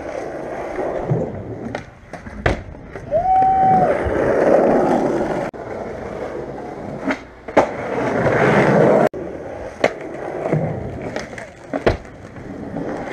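Skateboard wheels rolling over concrete and asphalt, swelling and fading, with sharp clacks of the board popping and landing about half a dozen times.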